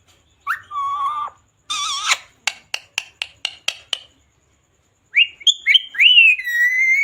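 Pet parrot calling: two short speech-like calls, then a quick run of about six short clicking chirps, then rising chirps that lead into a long whistle near the end.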